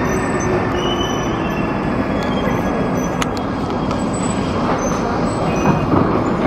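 Bucharest Metro train running into the station and slowing to a stop: a steady rumble with thin, high squealing tones that fade out in the first couple of seconds. A single sharp click comes about three seconds in.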